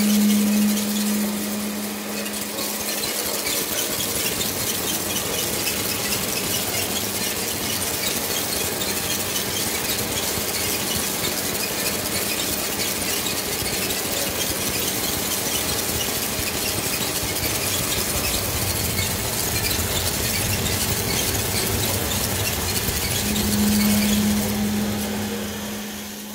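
Electronic noise composition from an audio-visual installation's stereo sound system: a loud, dense, crackling hiss. A steady low hum sits under it at the start, fades out after about two seconds and comes back near the end.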